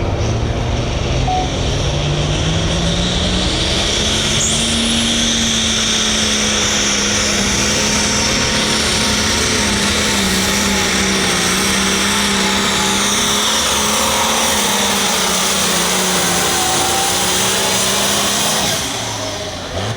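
Hot farm pulling tractor's turbocharged diesel engine running flat out down the track, its pitch climbing over the first few seconds and then holding high, with a high whine above it. The engine drops off near the end as the run finishes.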